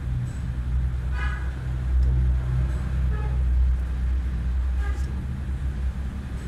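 Low steady rumble of an engine running, loudest in the middle of the stretch.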